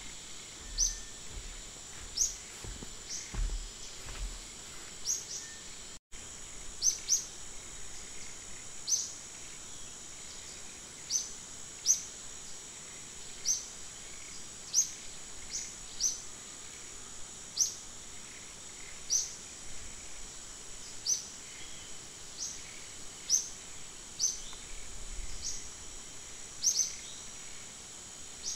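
Tropical forest ambience: a steady high-pitched insect drone, and over it a short high chirp that falls in pitch, repeating about every second and a half.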